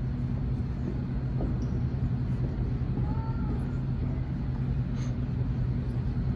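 Steady low hum and rumble of a large arena hall, with faint distant voices about halfway through.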